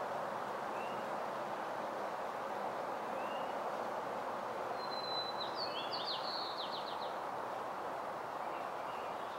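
A small bird gives two short rising chirps, then sings a brief phrase of quick notes ending in a trill about halfway through, over a steady background rush.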